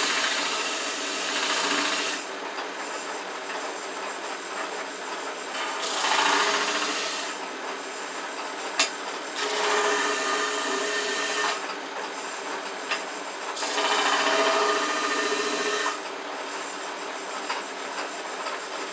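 Power sander running steadily while hard maple blocks are pressed against the abrasive four times. Each press brings a louder grinding rasp lasting about two seconds, and there is one sharp click a little before the middle.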